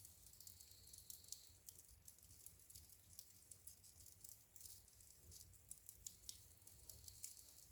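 Wood fire in a fireplace crackling softly: many small, sharp, irregular pops and ticks over a faint steady low sound from the burning fire.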